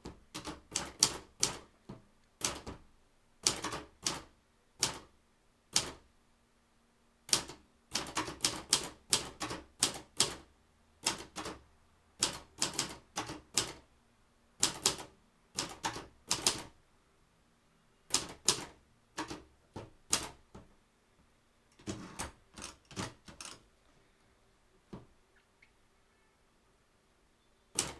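Royal 260 typewriter being typed on: sharp key strikes in irregular runs with short pauses between words. About 23 seconds in the typing stops for several seconds, with a single stroke in the lull.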